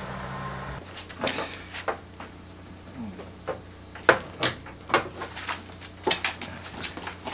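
A dog's metal tie-out chain rattling and clinking in quick, irregular jangles as the dog moves and jumps up against its owner.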